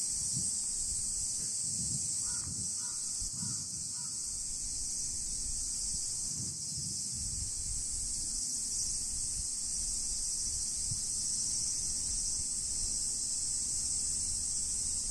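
Steady high-pitched chorus of cicadas, with four quick crow caws a little over two seconds in and a low wind rumble on the microphone.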